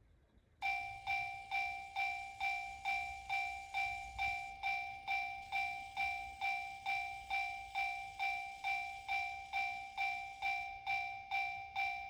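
Electronic warning bell of a TOMIX TCS Automatic Crossing II model level crossing, sounding from the crossing's own speaker. It starts about half a second in: an even, repeating ding of two tones, each strike dying away, about two strikes a second. This is the Japanese-style "kan-kan" level-crossing alarm, one of the unit's eight selectable warning sounds.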